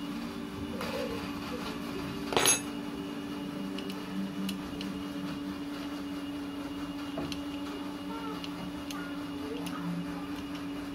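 Metal tools and parts clinking while the open cylinder head of a Yamaha Mio Soul GT scooter engine is worked on by hand, with one sharp clink about two and a half seconds in and a few fainter ticks later, over a steady low hum.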